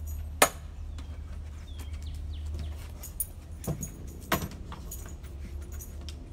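A few sharp clicks and knocks, the loudest about half a second in and three more in the middle, over a steady low rumble, with faint bird chirps.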